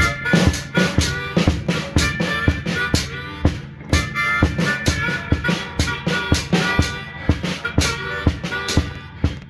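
Hohner Piedmont Blues diatonic harmonica played blues-style through a green bullet microphone, long held reedy notes and bends over a steady drum-kit beat.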